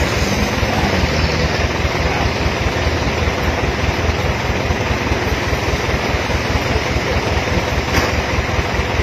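A vehicle engine idling close by, a steady rapid low throb with street noise over it.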